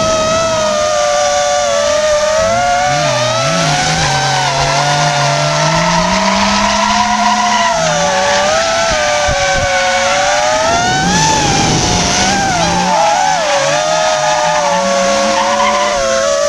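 The motors of an FPV racing drone whine, their pitch wavering up and down with the throttle as it flies, heard from the camera on board. Under the whine are drift cars: one engine rises in pitch from a few seconds in, and tires squeal as the cars slide.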